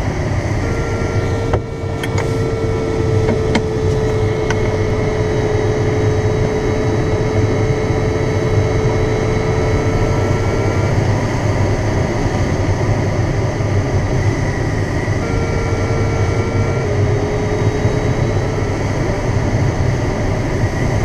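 Steady rush of air over a glider's cockpit in flight. A steady electronic tone sounds for about ten seconds from just after the start, and again for a few seconds later, dropping slightly in pitch. A few faint clicks come between two and four seconds in.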